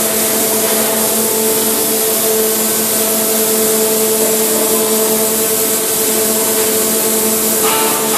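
Steady humming drone with a constant hiss from a tunnel boring machine's running machinery while its segment erector positions a concrete lining segment.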